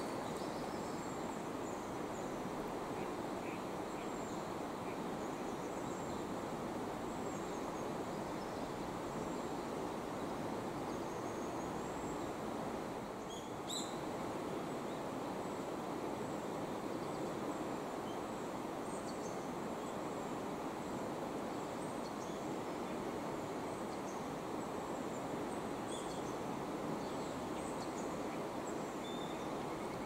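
Steady rush of flowing river water, with faint, short high bird chirps here and there.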